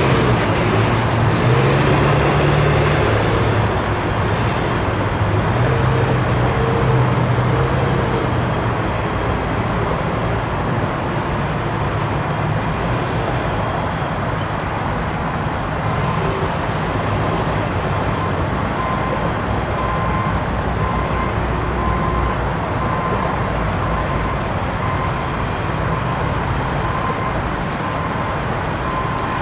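Steady road traffic noise mixed with the low running of diesel engines, the engine note strongest in the first several seconds. A faint beep repeats about once a second through the second half.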